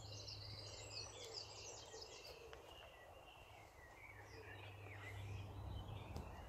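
Faint outdoor birdsong, quick chirps and warbles that are busiest in the first second or two and then thin out, over a low steady background hum.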